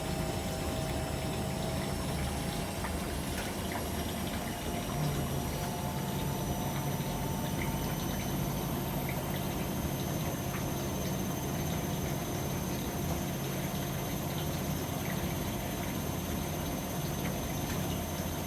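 AEG Öko-Lavamat 73749 washing machine working through its wash programme: water flowing and a pump running over a steady low hum, with a faint high whine that slowly rises.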